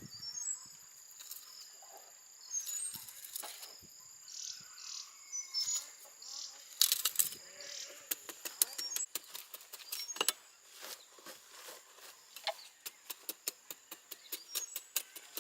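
Steady high-pitched insect chirring, with a few short bird chirps. A fast run of sharp clicks and taps starts about halfway in.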